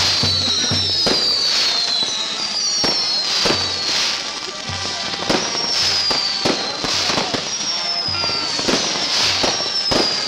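Fireworks going off in quick succession: a string of high whistles, each falling in pitch, mixed with repeated sharp bangs and crackles. Drumming beats underneath.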